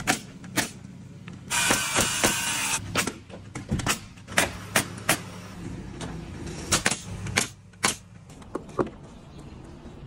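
Pneumatic framing nailer firing nails into wood framing: a string of sharp shots at uneven intervals, mixed with knocks of lumber being handled. There is a short burst of hissing about two seconds in.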